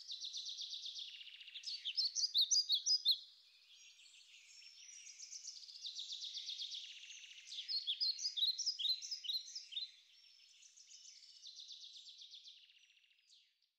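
Small songbirds singing: quick high chirps and trills in bursts, louder twice, fading out just before the end.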